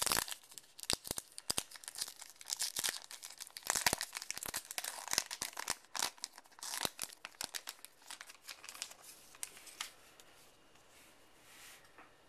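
Wrapper on a trading-card box-topper pack being torn open and crinkled by hand, a dense run of crackling that thins out and dies down near the end.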